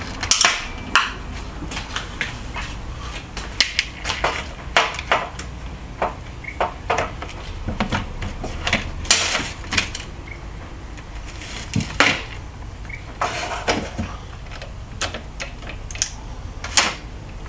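Irregular clicks and knocks of a cordless drill's plastic housing and parts being handled and worked apart during a teardown.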